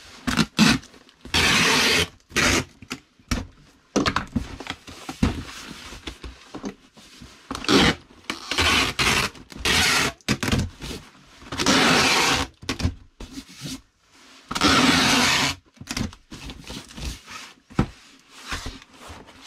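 Handheld tape gun pulling packing tape off the roll across a cardboard box, in several runs of about a second each. Between the runs, short knocks and rustles of the cardboard being handled.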